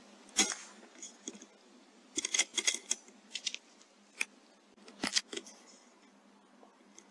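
Airmaks Krait L .22 air rifle firing, a single sharp crack about half a second in. Over the next few seconds comes a series of sharp mechanical clicks and knocks.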